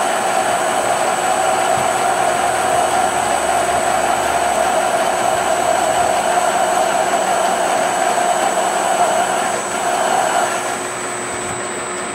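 Metal lathe running steadily as its cutting tool turns down the end of a Tecumseh engine crankshaft; the crank is cutting like cast iron. The sound eases off slightly about ten and a half seconds in.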